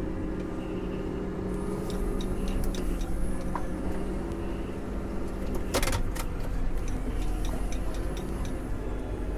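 Tractor engine running steadily, with one sharp click about six seconds in.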